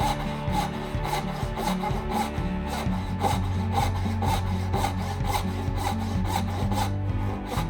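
A hand tool worked back and forth on wood in quick, even strokes, about four a second, with background music underneath.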